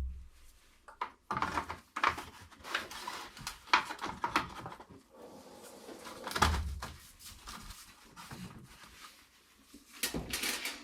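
Plastic sole plate being handled and fitted back over the brush roll on the underside of a Bissell PowerForce vacuum cleaner: a thump at the start, then irregular plastic clattering and knocks, with another thump about two-thirds of the way through.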